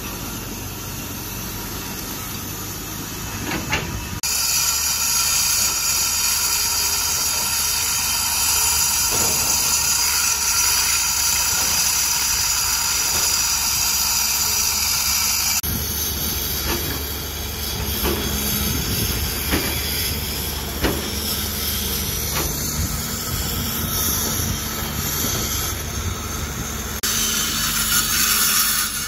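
A hydraulic excavator's diesel engine runs briefly. Then an electric angle grinder cuts into a concrete pile with a loud, steady whine and hiss for about ten seconds. Later comes a lower machine rumble with scattered knocks, and another short burst of grinding near the end.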